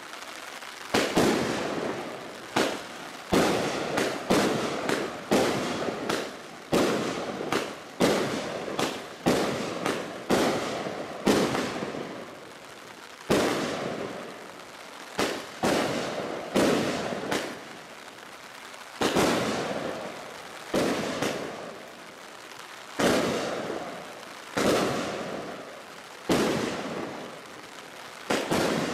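Bright Star Thunder Bomb 1.3G 100-shot barrage firework firing shot after shot, roughly one a second with short lulls. Each shot is a sudden sharp report that fades away over about a second.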